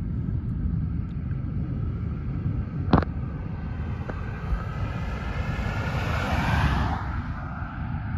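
Wind rumbling on the microphone, with a vehicle passing on the highway, swelling and fading between about four and a half and seven seconds in. A single sharp click about three seconds in.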